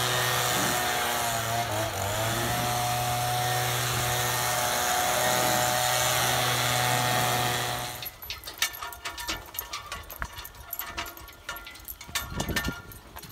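Gas-powered handheld leaf blower running at full throttle, blowing loose sand out of a pickup bed, its pitch dipping briefly twice as the throttle is eased. About eight seconds in it cuts off, and scattered clinks and knocks follow from a draft horse team walking in harness.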